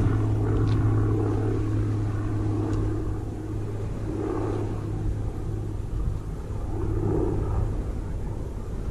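A steady low engine drone, louder for the first three seconds and then weaker, over low wind rumble on the microphone.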